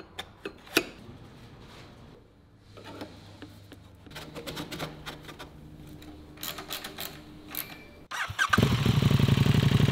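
Scattered metallic clicks and knocks as the titanium exhaust and its end caps are fitted by hand. About eight seconds in, a KTM 1290 Super Duke R's V-twin starts and then runs loud and steady through a handmade Austin Racing titanium exhaust.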